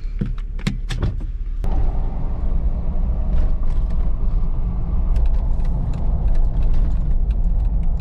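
Steady low rumble of a car driving, heard from inside the cabin, growing louder and fuller a little under two seconds in. A few sharp clicks and knocks come in the first second or two.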